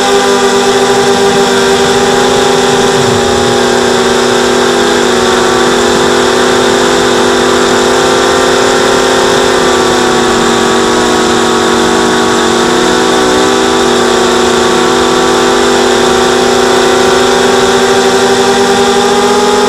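Mini quadcopter's four electric motors and propellers whining steadily in flight, heard through the onboard camera. The pitch wavers with throttle, sags a little past the middle and climbs again near the end.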